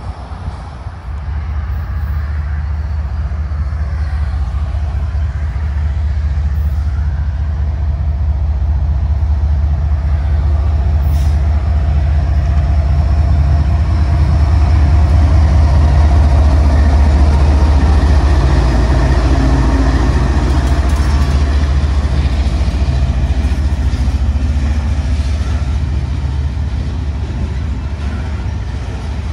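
CSX diesel freight locomotive passing close by. Its low engine drone builds as it approaches, is loudest about halfway through, then eases as a string of gondola cars rolls past with a steady wheel-on-rail rumble.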